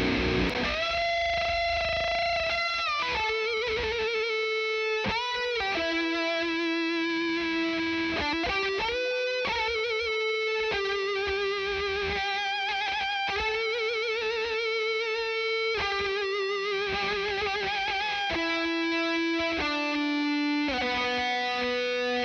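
Distorted electric guitar solo played through a Blackstar Series One 6L6 valve head into a Celestion Neo Creamback 12-inch speaker, recorded with no EQ or compression. Long sustained single notes with wide vibrato and bends, following a brief moment of the dense multi-tracked rhythm chords at the very start.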